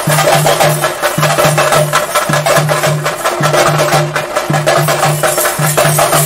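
Traditional Kerala temple percussion of the kind that accompanies Theyyam: rapid chenda drumming with cymbals, over a deeper beat that falls in groups of three about once a second.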